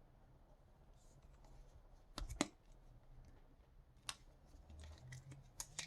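Faint handling of a Leatherman Leap multitool, with sharp metal clicks: a quick double click about two seconds in, a single click near four seconds and another double click near the end.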